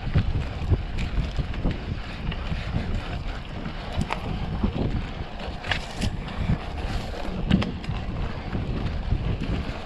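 Mountain bike ridden over a rough dirt track: wind buffeting the microphone with a steady low rumble, and scattered clicks and knocks as the bike rattles over bumps.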